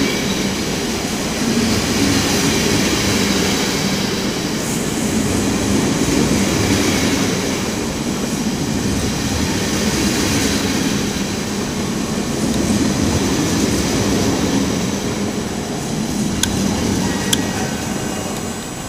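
Benelux passenger train departing, its coaches rolling past close by with a steady rumble of wheels on rail. A couple of sharp clicks come near the end as the yellow electric locomotive 1181 at the end of the train goes by.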